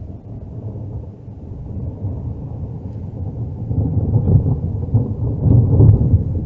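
Thunder rumbling long and low, swelling louder toward the end.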